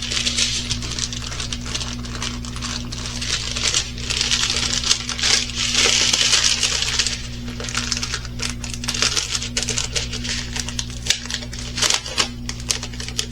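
Crinkling and rustling of plastic packaging from a diamond painting kit being handled, with many small clicks, loudest in the middle, over a steady low hum.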